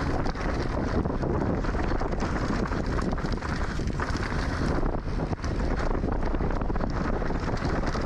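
Wind rushing over the microphone of a camera on a mountain bike descending a trail, with a constant clatter of small knocks from the bike over rough ground.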